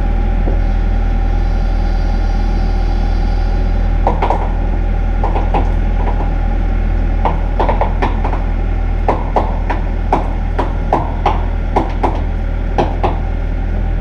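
Bobcat E42 mini excavator's diesel engine running steadily while it holds a disc chisel harrow up on a chain. From about four seconds in, a string of sharp metallic clanks and knocks as the hanging harrow and its chain shift and bump.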